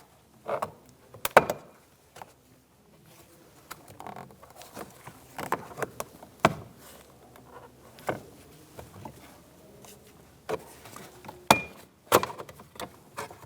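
A plastic trim tool prying a plastic trim piece off a door panel: scattered clicks and scrapes, with several sharp snaps as the retaining clips let go.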